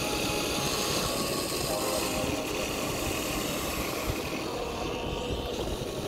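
A motor running steadily, with an even hum and no clear knocks or changes.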